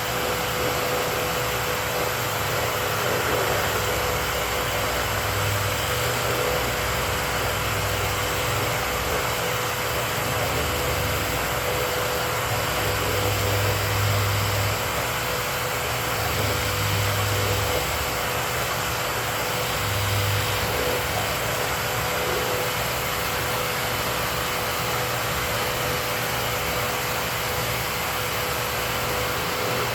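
Dust-collection vacuum running steadily with a constant motor whine, with some uneven low rumbling in the middle.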